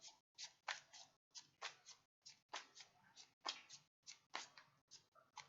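Tarot cards being shuffled by hand: faint, quick swishing strokes in clusters of two or three, about one cluster a second.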